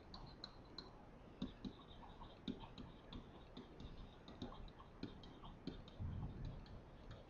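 Faint, irregular clicks and taps of a stylus on a writing tablet as words are handwritten, a few clicks a second. A soft low bump comes about six seconds in.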